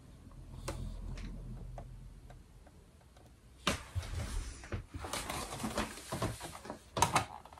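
A faint low rumble for about two seconds, then after a short pause a run of small clicks, knocks and rustles from a plastic Barbie Dream Closet toy being handled, with two sharper clicks near the end.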